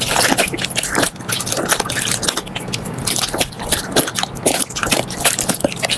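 Slime being squeezed and worked by hand, giving a dense, uneven stream of small crackles, pops and squelches.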